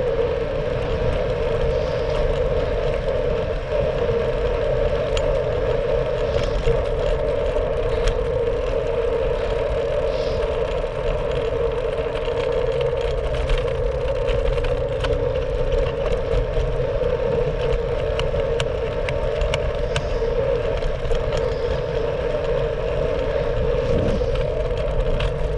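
Riding noise from a Brompton folding bike heard through a GoPro on the bike: a steady rush of wind and tyre rumble, with light rattles and clicks from the bike over the road surface.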